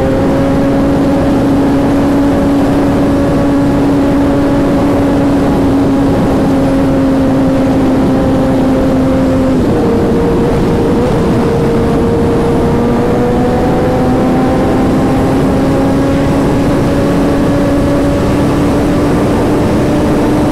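Sport motorcycle engine running at a steady cruise under wind rush. About ten seconds in its pitch drops suddenly, then slowly climbs back up.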